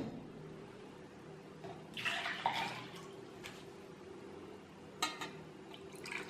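Water splashing and pouring for about a second, around two seconds in, as a drinking glass used for measuring is emptied, then a short clink about five seconds in.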